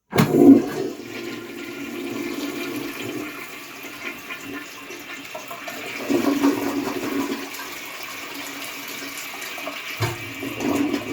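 A 1930 Standard Monaco toilet flushing: a sudden loud rush of water, then water running steadily through the bowl and tank, swelling again a few times.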